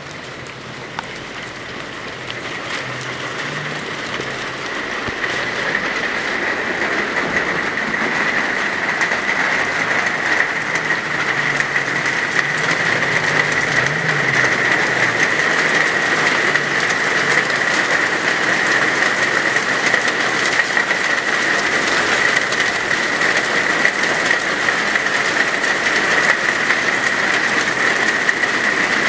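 A hail storm with rain: a dense hiss of countless small hailstones striking tiled patio and ground, with many sharp ticks. It builds over the first ten seconds or so, then holds steady and heavy.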